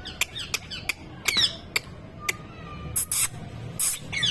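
Pet parrot chirping and squawking: a run of sharp clicks and short falling chirps, then two harsh, screechy squawks about three and four seconds in.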